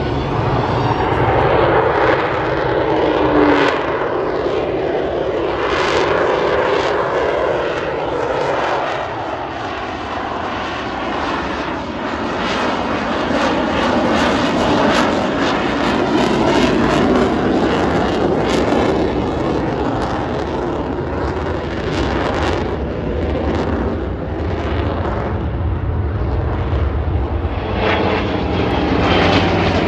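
Airplane engine running loud as an aircraft performs an air-show display overhead. The pitch glides downward a few seconds in as it passes.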